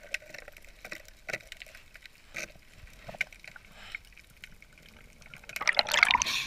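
Muffled underwater ambience with scattered faint clicks, then a loud splashing rush near the end as the diver surfaces and the camera breaks through the water.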